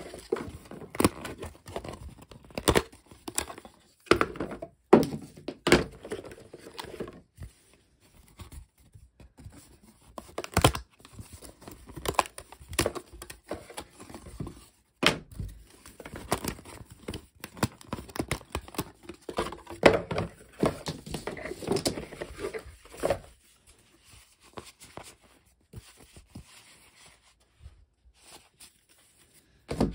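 Thick cardboard map tiles and punchboard sheets being handled, shuffled and set down in a cardboard game box: irregular sharp knocks and snaps over rustling and scraping, quieter in the last few seconds.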